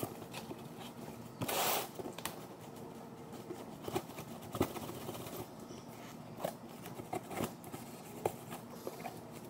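Hands pulling and prying at a taped-shut cardboard box. There is one short, louder rasp of cardboard about a second and a half in, then scattered light knocks and scrapes on the box.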